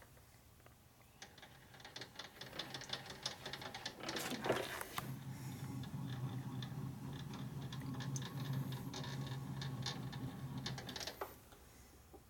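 Metal lathe carriage and apron handwheel being cranked by hand, the gearing clicking and rattling, while the newly tightened adjustment is tested for drag and play. From about five seconds in a steady mechanical hum joins the clicking, and both stop near the end.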